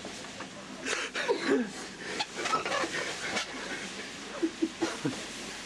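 Indistinct voices of several people talking over one another, over a steady background hubbub.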